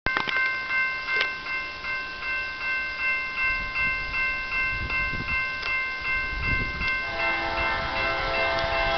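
Railroad grade-crossing bell ringing steadily at about three strokes a second, over the low rumble of an approaching train. About seven seconds in, the lead locomotive's multi-note air horn sounds a held chord.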